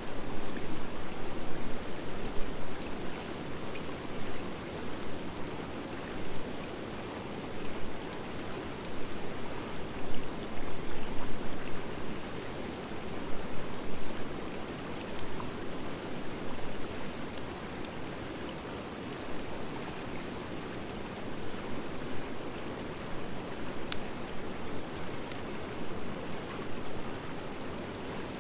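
Wood fire burning in a metal fire pit: a steady rushing of flames that swells and eases, with scattered sharp crackles and pops from the firewood.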